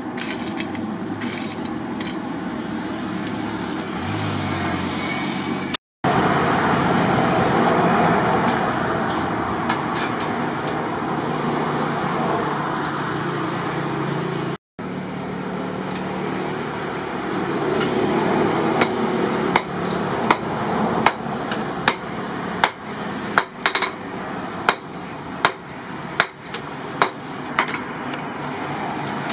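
Charcoal forge under forced air, with a steady rushing blower noise. In the last ten seconds sharp metallic knocks come through it, roughly one a second.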